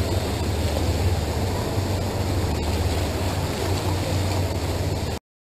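Steady low rumble of a tug-barge under way close by, mixed with churning water and wind on the microphone. The sound cuts off abruptly about five seconds in.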